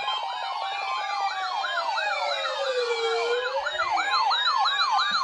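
Several electronic sirens sounding at once. A slow wail rises and falls underneath a fast yelp that sweeps about three or four times a second, and a quick high warble joins past the middle.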